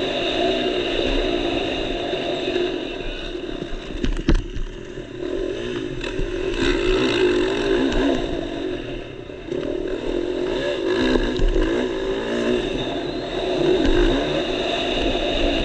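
Motocross dirt bike engine revving hard, its pitch rising and falling with the throttle and gear changes, heard from the rider's helmet camera. A sharp knock about four seconds in.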